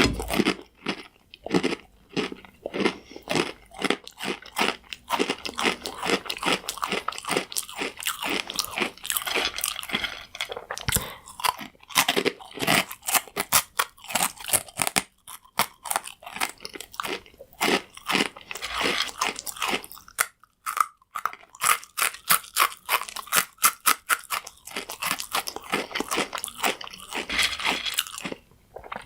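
Person chewing crunchy croutons: a steady run of loud, sharp crunches, with a short pause a little over two-thirds of the way through.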